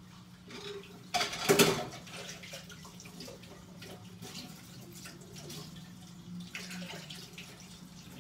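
Kitchen tap running into a sink while dishes are washed by hand, with scattered clinks and a loud clatter about a second in.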